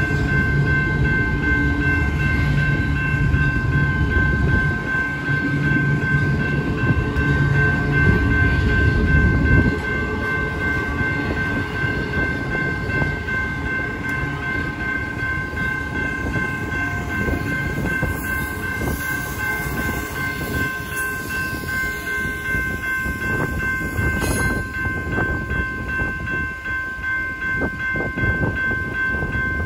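Double-stack container freight train passing over a grade crossing, its wheels rumbling and clacking, while the crossing signal's bell rings steadily. The heavy rumble eases about ten seconds in, leaving lighter wheel clacks as the last cars go by.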